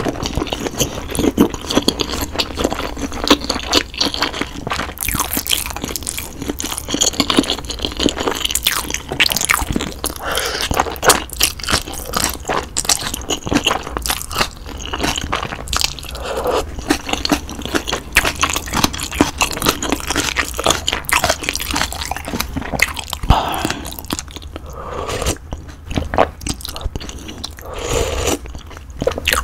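Close-miked chewing and biting of budae-jjigae (Korean army stew with sausage, ham, beans, noodles and green peppers), with crunchy bites and irregular clicking mouth sounds picked up by a condenser microphone.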